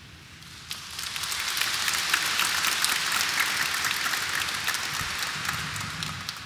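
A large congregation applauding: a dense clatter of many hands clapping that builds up about a second in, holds steady, and begins to fade near the end.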